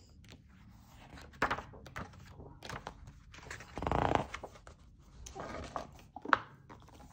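Pages of a large paperback colouring book being turned by hand, a series of light paper rustles and flicks, with a longer sweep of paper about four seconds in and a short knock a little after six seconds as the book is laid open and pressed flat.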